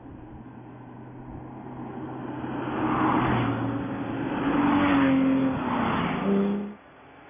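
Porsche 911 flat-six engines passing close by one after another, three swells of engine sound as each car goes past under acceleration. The sound cuts off abruptly shortly before the end.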